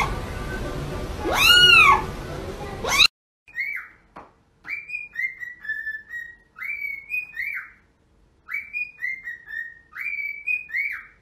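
A kitten mews loudly twice in the first few seconds. Then a cockatiel whistles the same short tune about five times over, each phrase a few stepping notes ending in an up-and-down glide.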